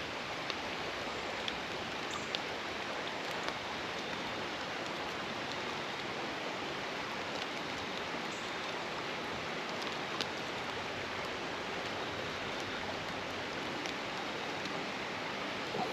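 Creek water running steadily, with a few faint ticks scattered through it.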